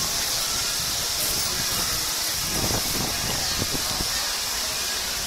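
Steady hissing background noise, with a few faint short knocks a few seconds in.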